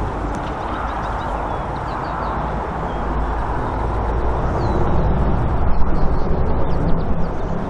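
Four Wright R-1820 Cyclone radial piston engines of a Boeing B-17 Flying Fortress droning in flight, a deep steady rumble that grows louder about five seconds in as the bomber banks and heads toward the listener.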